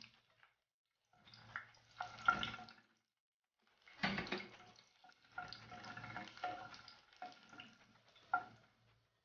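Garlic cloves sizzling and crackling in hot oil in a saucepan, in uneven bursts. A wooden spatula stirs them, scraping the pan and knocking against it with a few sharp clacks.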